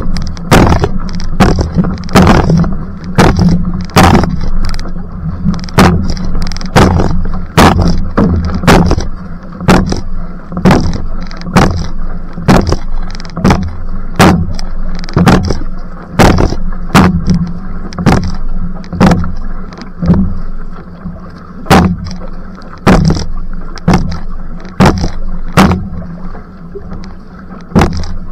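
Outrigger canoe paddle strokes in a fast sprint: the blade splashes into the water a little more than once a second, over a steady low rush of water along the hull.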